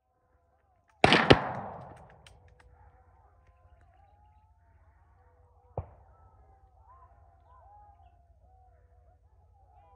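Two loud gunshots in quick succession about a second in, echoing away, then a fainter single gunshot a few seconds later, fired during a wild boar hunt.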